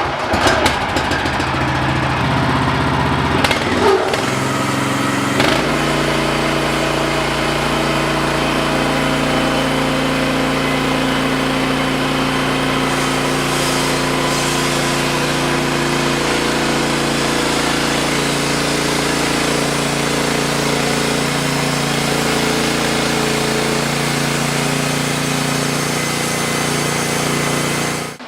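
Wood-Mizer LX55 portable band sawmill running, its engine shifting to a new steady pitch about five seconds in and holding it; the sound drops away suddenly near the end.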